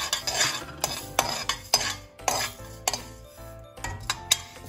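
Metal spoon scraping and clinking against a stainless steel kadai in short, irregular strokes, about two a second, as whole spices (fennel and cumin seeds, curry leaves, cinnamon) are stirred while dry-roasting.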